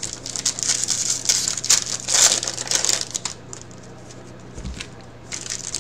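Foil trading-card pack wrapper crinkling while cards are handled: a busy stretch of rustling and crackling that eases off about three seconds in and picks up again near the end.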